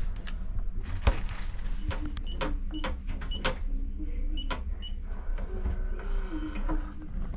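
Indel B electronic hotel safe being opened: its keypad clicks and gives a short beep at each button press, then its lock motor whirs for about two seconds as the safe unlocks.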